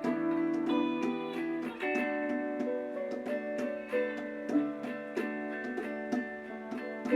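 Background music played on a plucked string instrument, a guitar or ukulele, picking a gentle melody with regular plucked notes.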